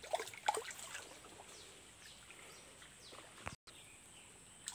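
Small hooked fish splashing faintly at the surface of shallow swamp water as it struggles on a set hook line, a few splashes in the first second, then quieter stirring.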